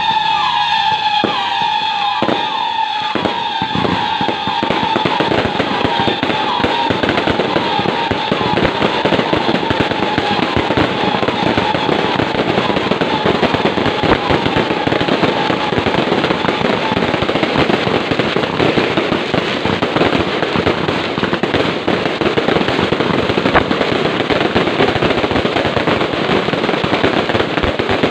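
Fireworks going off continuously: a dense, loud crackle of rapid bangs, with a run of whistles falling in pitch over roughly the first two-thirds.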